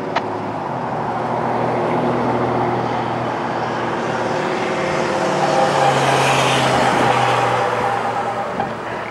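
Single-rotor helicopter flying low overhead, a steady mechanical hum under rushing noise that grows louder to a peak about two-thirds of the way through, then eases off as it passes.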